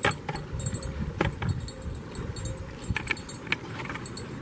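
Wind rumbling on a phone microphone, with several short sharp clicks and knocks scattered through, about a second in and around three seconds in.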